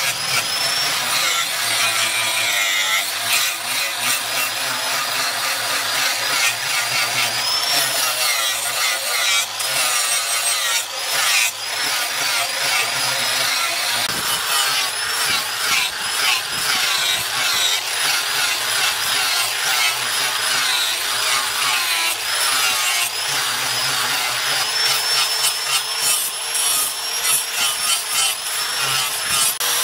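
Handheld angle grinder with a flap disc grinding a steel knife blank: a steady rasping grind, the motor's whine wavering in pitch throughout.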